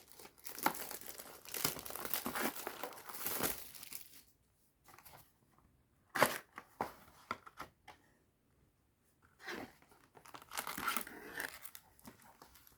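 Packaging of a trading-card booster display box being torn open by hand: plastic wrap and paper tearing and crinkling in spurts, with one sharp click about six seconds in and short quiet pauses between.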